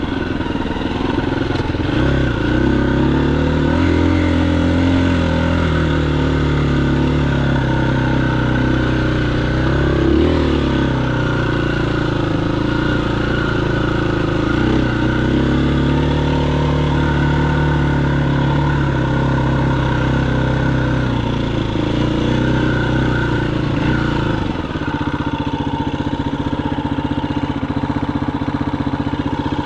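Motorcycle engine running on a ride, its pitch rising and falling as the throttle opens and closes. About 25 seconds in it drops to a steady idle.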